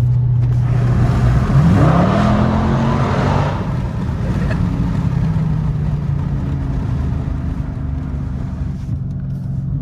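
2019 Dodge Charger Scat Pack's 6.4-litre 392 HEMI V8 on its stock exhaust, heard from inside the cabin. It drones steadily at highway speed, then about a second and a half in revs up under hard acceleration, rising in pitch for about two seconds. It then eases back to a lower, steady drone as the car lifts off.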